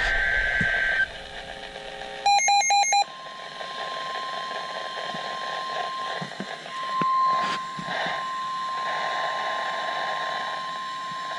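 NOAA Weather Radio alert heard through a receiver with background hiss: about a second of warbling data tones, four quick beeps, then the steady 1050 Hz warning alarm tone sounding for about nine seconds, signalling that a severe thunderstorm warning is about to be read.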